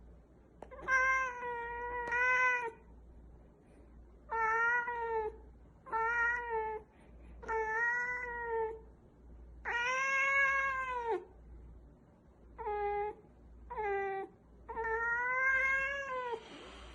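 A domestic cat meowing over and over: about eight long, drawn-out meows, each held at a steady pitch for about a second, with short pauses between them.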